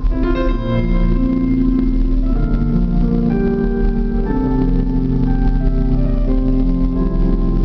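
Instrumental background music of held keyboard chords under a slow-moving melody.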